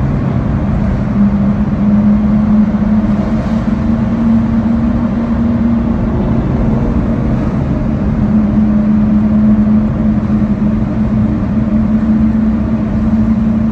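Lamborghini Aventador SV Roadster's V12 exhaust cruising at steady revs inside a road tunnel: a loud, even low drone with no pops or crackles.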